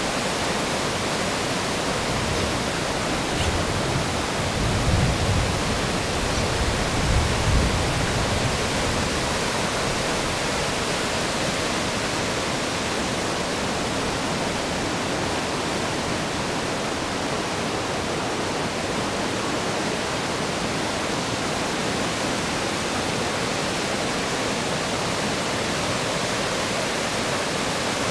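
Creek in flash flood: high, fast water rushing steadily, with a few stronger low rumbles between about four and eight seconds in.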